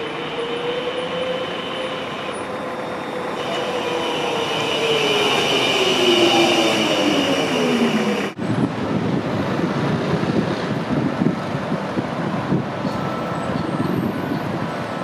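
Electric tram pulling in and braking to a stop, its traction motors whining in a tone that falls steadily as it slows, with a high steady whine above. About eight seconds in, this cuts to city street traffic noise.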